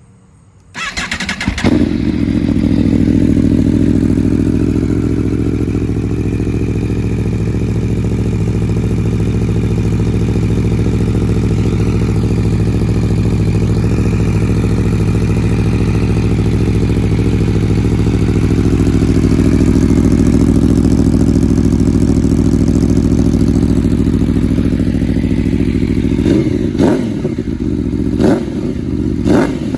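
2019 Aprilia Tuono V4 1100 RR's V4 engine cold-starting through a GPR mid-pipe and slip-on exhaust with the dB killer removed. It catches about a second in and settles into a steady, loud idle, then takes a few short, sharp throttle blips near the end.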